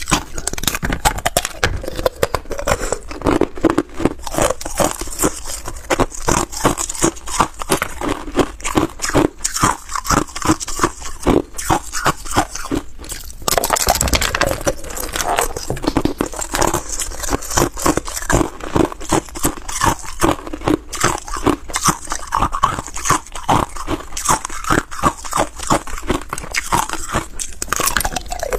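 Hard ice cubes being bitten and chewed: continuous rapid crunching and cracking of ice, many crunches a second, with a brief pause and a loud crack about halfway through.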